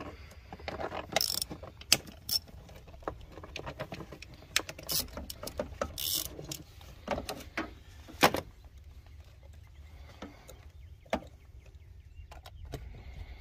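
Socket ratchet clicking in irregular runs while a bolt on a 2002 Toyota Prius's air cleaner box is worked loose, with a few sharper metal knocks about two and eight seconds in.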